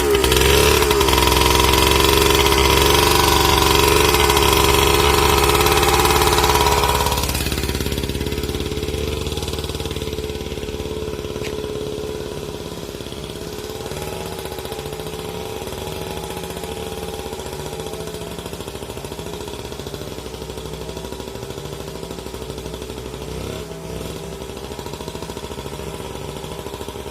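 Two-stroke motorcycle engine powering a log winch, running at high revs, then throttled back about seven seconds in to a lower, steady speed.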